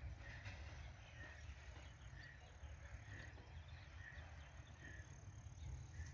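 Faint outdoor background: a short high call repeats about once a second, over a steady high whine that breaks off now and then and a low rumble.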